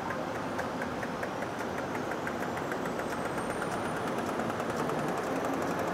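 Etirama SPS4 servo-driven flexographic label press running: a steady mechanical hum with a quick, regular light ticking and a faint high whine slowly rising in pitch as the press is brought up to production speed.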